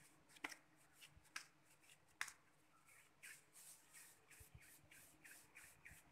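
Faint sounds of hands working a stiff baati dough: a few sharp clicks in the first two seconds, then soft rhythmic rubbing, about three strokes a second, as a ball of dough is rolled between the palms.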